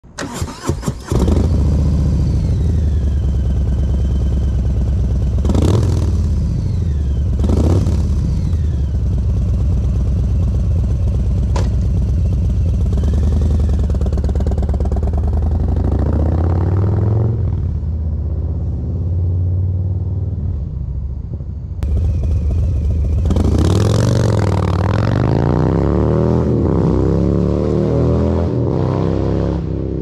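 A 2022 Harley-Davidson Low Rider ST's 117-cubic-inch Milwaukee-Eight V-twin through SuperTrapp Fat Shots 2:1 exhaust (24 discs, open end cap) cranks and catches about a second in, idles with two quick throttle blips, then pulls away. Later it runs hard through the gears, its pitch climbing and dropping back with each shift.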